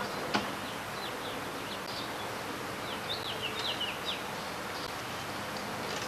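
Small birds chirping: a run of short, quickly falling chirps, thickest about three to four seconds in, over a steady hiss. A single sharp click just after the start.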